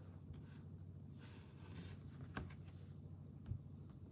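Quiet handling sounds of diamond-painting supplies over a steady low hum. A faint scratchy rustle comes about a second in, then a sharp click about midway and a soft tap near the end, as the plastic drill tray and its resin drills are handled over the canvas.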